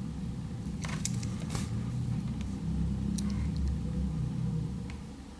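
A few light clicks and taps from a Victorinox Tinker Swiss Army knife being handled, over a steady low rumble that eases off near the end.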